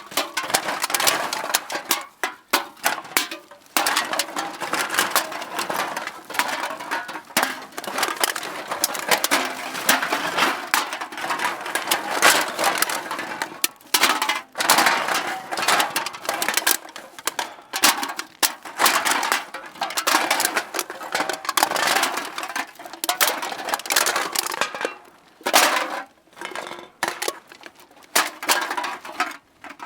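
Metal cans clinking and clattering against each other as they are put into a bag. The clatter is dense and continuous, with a few short breaks.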